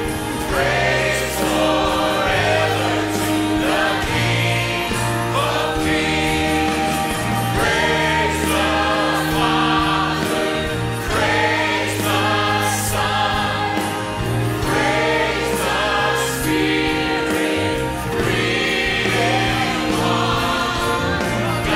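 Church worship band with choir singing a worship song: held bass notes under the voices, with cymbal hits recurring every few seconds.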